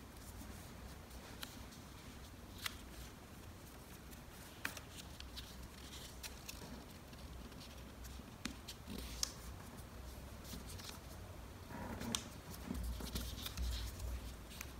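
A square of origami paper being folded and creased by hand: scattered sharp little clicks and crinkles as the folds are pressed, with a longer rustle of paper about twelve seconds in.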